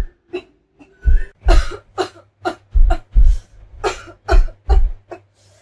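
A woman coughing over and over in a long fit, about two short coughs a second.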